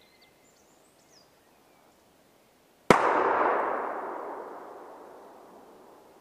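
A single shotgun shot: one sharp bang about three seconds in, its echo rolling on and dying away over about three seconds. Before it, a few faint high bird calls.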